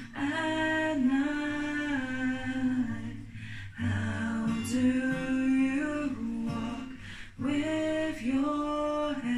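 A young woman singing a slow song solo, in long held notes: three phrases with short breaths between them.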